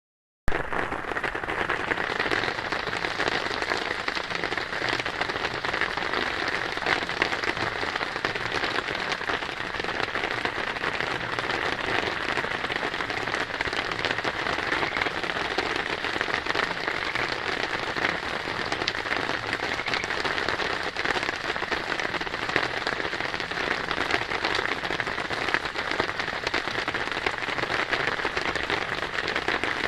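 Steady rain falling on a surface: a dense, even patter of drops.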